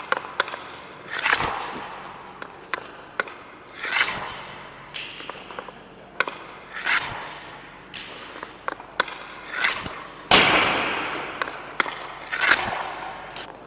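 Hockey pucks shot one after another with a CCM ASV Pro composite stick on indoor ice. Light clicks of the blade on the puck and ice, then about six sharp cracks of shots and pucks striking, each echoing around the rink; the loudest is about ten seconds in.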